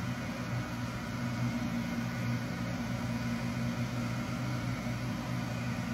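Steady low hum of freeze dryers running, a constant drone with an even hiss over it.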